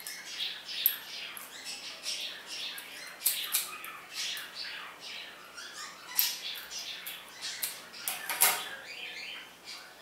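Scissors snipping and scraping repeatedly in short sharp clicks, with a louder clack about eight and a half seconds in.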